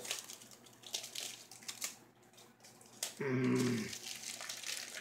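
Plastic packaging crinkling and rustling in the hands as a flexible phone case is worked out of its wrapping, in short irregular crackles. A brief hummed voice sound comes a little past three seconds in.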